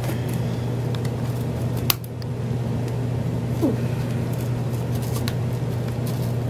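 Steady low hum of room machinery, with scattered small clicks of scissors snipping packing tape on a cardboard box; the sharpest click comes about two seconds in.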